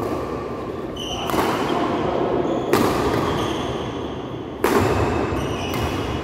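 Badminton rally in a reverberant hall: four sharp racket strikes on the shuttlecock, one every one to two seconds, with short squeaks of shoes on the court between them.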